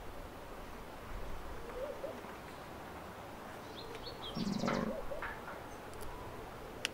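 A bird gives a faint, low, short call about two seconds in. A louder dull rustle of handling follows midway, and a single sharp click near the end, the concave bonsai cutter snipping through a branch.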